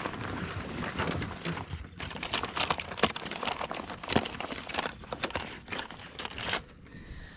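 Handling noise in an aluminum boat as a bass is lifted out of a landing net: a rapid, irregular run of clicks, knocks and rustling, thickest in the middle and thinning out near the end.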